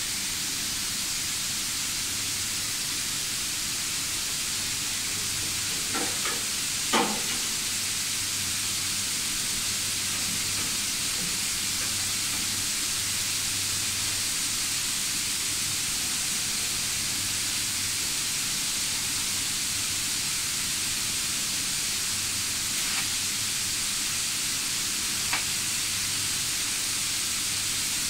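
A steady hiss with a low hum underneath. A few light metallic clicks and knocks from tools on the stainless steel agitator shaft and hub: three close together about six to seven seconds in, and two fainter ones near the end.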